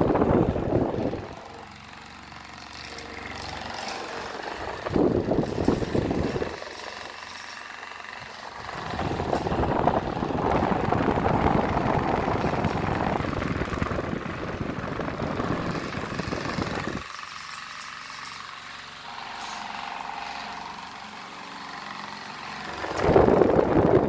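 Cadence Ventilar Eros Supreme table fan running at medium speed, the rush of its blades and air swelling and fading several times.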